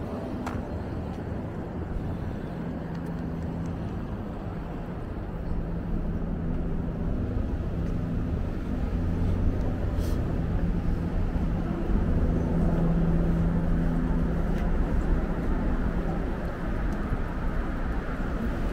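City street traffic: a steady mix of passing and idling vehicles, with a low engine hum that swells and fades.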